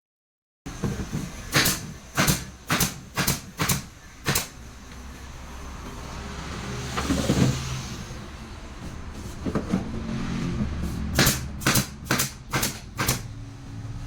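Two runs of sharp knocks, one about every half second: six in the first few seconds and five more near the end. Between them a rushing noise swells and fades about seven seconds in, over a steady low hum.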